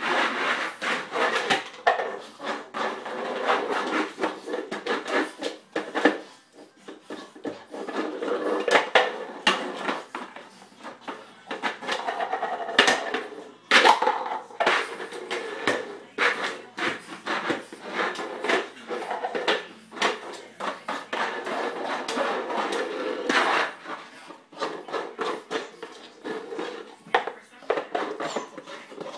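A boxer puppy shoving a cereal bowl across a kitchen floor with its nose: the bowl scrapes along the floor and clatters, with many short knocks as it hits the stove and cabinets.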